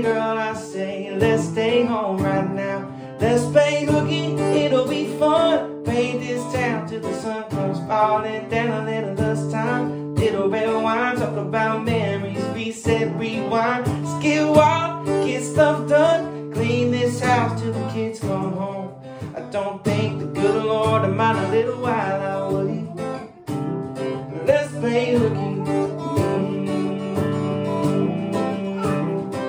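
A man singing a song and accompanying himself on an acoustic guitar.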